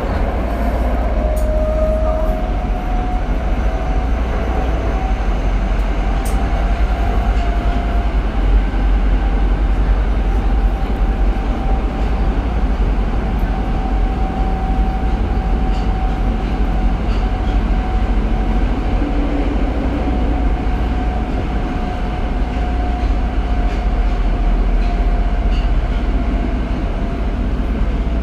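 Tokyo Metro 02 series subway car (02-545) running at speed, heard from inside the car: a steady rumble of wheels on rail with a steady tone running through it.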